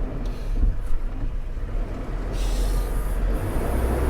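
Diesel truck engine running with a steady low rumble, with a brief hiss about two and a half seconds in.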